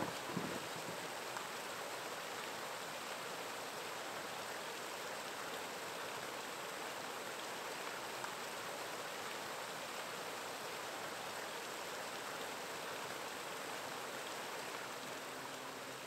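Running water from a stream, a steady, even rushing with no break.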